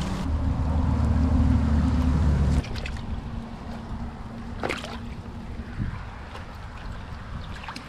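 Wind rumbling on the microphone over lapping shallow water; the rumble stops abruptly about two and a half seconds in. Softer water noise follows, with one brief splash about five seconds in.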